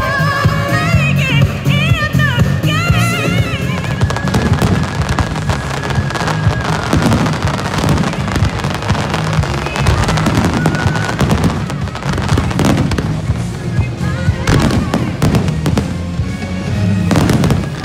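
Amplified music with singing for the first few seconds, then aerial fireworks bursting and crackling over the continuing music, with a number of sharper bangs in the second half.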